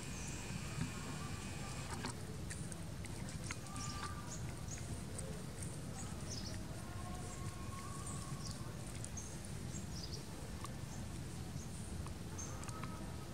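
Outdoor ambience: short high bird chirps now and then over a steady low rumble.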